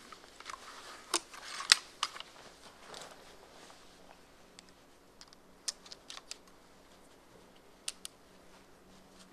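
Unmodified Cobra crossbow pistol being cocked and reloaded by hand: a scattering of sharp plastic-and-metal clicks and small rattles of the mechanism, string and bolt. The loudest clicks come one to two seconds in, with a few more near six and eight seconds.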